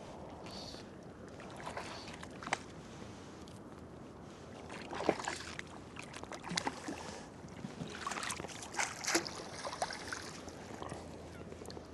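River water splashing and sloshing, with scattered light knocks and clicks that come more often in the second half.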